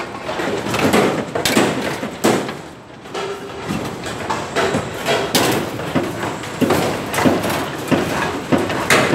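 Building-site work noise: irregular hammer knocks and clanks, roughly one or two a second.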